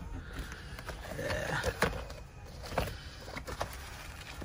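Handling noise from a zippered planner binder being opened and leafed through: papers and vinyl rustling, with a few light clicks and knocks.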